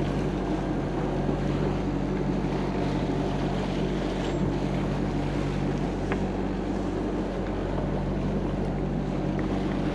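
Sailboat's inboard diesel engine running steadily under way, a constant low hum, with wind and water noise over it.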